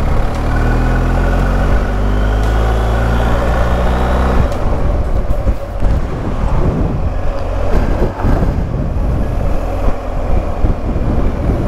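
Motorcycle engine accelerating, its pitch rising steadily, then about four and a half seconds in the sound turns abruptly to a steady rush of wind buffeting the microphone, with the engine running underneath, as the bike rides along at speed.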